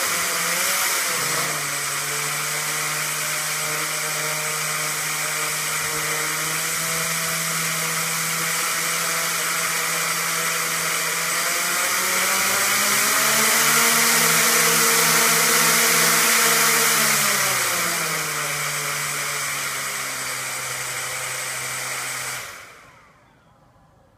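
Quadcopter's electric motors and propellers spinning while it sits on the ground, a steady whine. The pitch rises about halfway through as the throttle goes up, holds for a few seconds and drops back. Near the end the motors wind down and stop.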